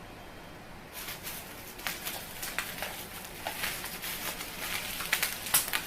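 Plastic packaging, likely bubble wrap, crinkling and rustling as it is unwrapped by hand, with a dense run of small crackles and clicks starting about a second in.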